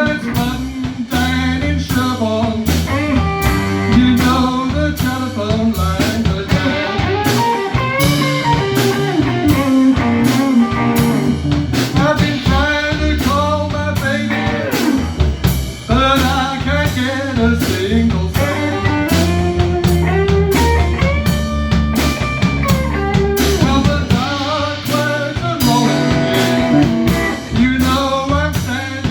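Live electric blues band playing a slow blues: electric guitar with bending notes over a drum kit and steady low notes.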